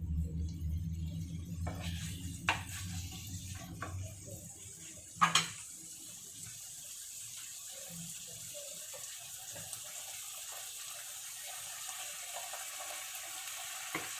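Tuna, garlic and olives frying in olive oil, sizzling with an even hiss. A few sharp clicks come early, and a loud double knock about five seconds in.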